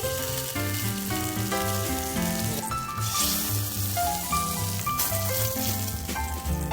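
Pieces of fish sizzling as they sear in an oiled frying pan on medium heat. The sizzle swells about three seconds in and again near the end, under background music.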